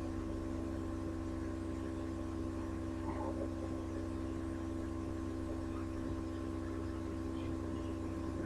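Steady electrical hum of several constant tones over background hiss, with no clear event.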